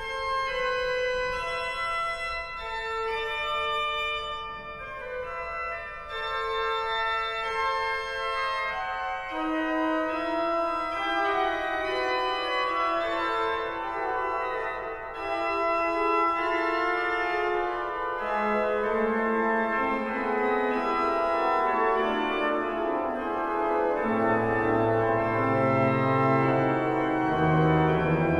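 Hinsz pipe organ playing a fugue: one line of held notes alone at first, then further voices entering one after another, each lower than the last, the pedal bass joining in the last few seconds as the sound grows fuller and louder.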